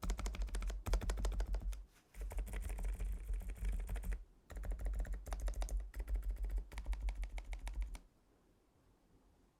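Fast typing on a Lofree Flow2 mechanical keyboard, in quick runs of key strikes with two short breaks, stopping about eight seconds in.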